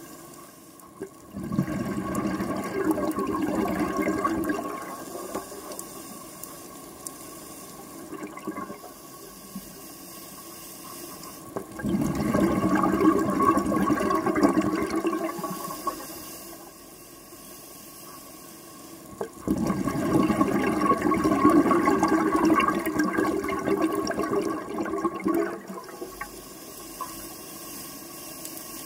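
Scuba diver breathing through a regulator underwater: three long rushes of exhaled bubbles, the last the longest, with quieter stretches between them as the diver breathes in.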